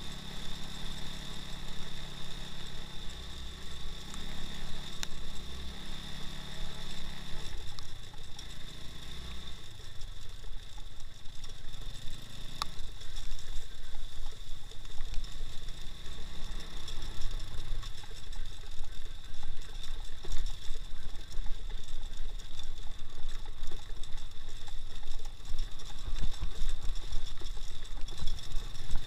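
Engine of an all-wheel-drive 2x2 off-road motorcycle running at low revs, its pitch falling and rising several times as the throttle changes. A steady high-pitched whine sounds alongside it, with occasional knocks.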